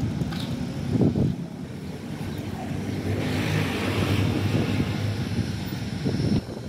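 Road traffic on a city street: a steady low engine rumble from passing vehicles, motorbikes among them, with some hiss that swells for a moment halfway through. The sound changes a little over a second in.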